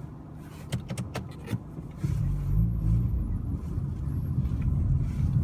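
A few light clicks, then about two seconds in a car's low rumble starts suddenly and keeps going: engine and tyres on a snowy road.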